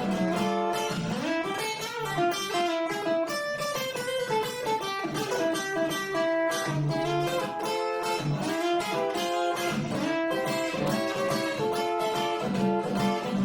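A guitar played live, a steady run of picked notes over a low bass line.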